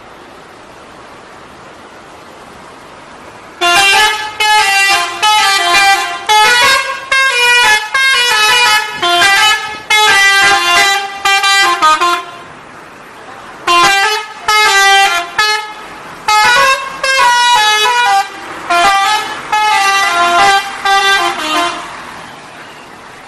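Telolet bus horn: a multi-tone musical air horn playing quick tunes of changing notes. It sounds in two long bursts of about eight seconds each, with a short pause between them, over low steady background noise.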